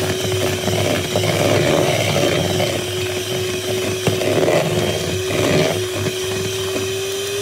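Electric hand mixer running at a steady speed, its beaters whipping butter icing and knocking and scraping against the sides of the bowl.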